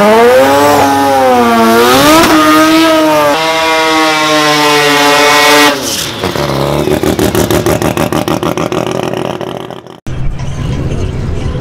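Car engine revving hard up through the gears, its pitch climbing and dropping back at each shift. It then changes to a fast pulsing engine note that fades out, and after a short cut a low, steady engine idle.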